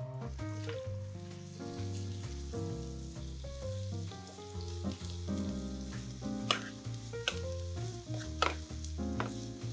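Sliced onions sizzling in hot oil in a frying pan, the hiss starting as they drop in, then stirred with a wooden spatula, with a few sharp taps in the second half. Background music plays throughout.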